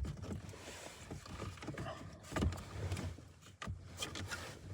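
Light plastic clicks, knocks and rustling of hands prying the power window switch out of a Jeep's door trim.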